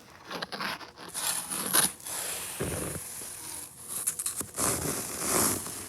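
Snow being scraped and crunched, uneven scraping noise with a few louder swells.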